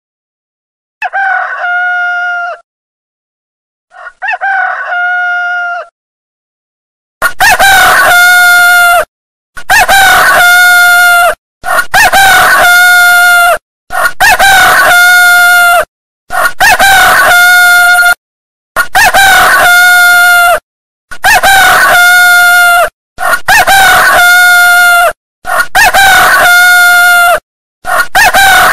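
Rooster crowing over and over: two quieter crows, then after a short pause a long run of about ten loud crows, each about two seconds long and coming at an even pace with brief silences between them.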